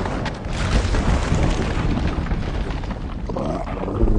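Movie sound effects of a dragon crash-landing with its rider: a loud, continuous rumbling crash heavy in the deep lows, ending in a deep thud.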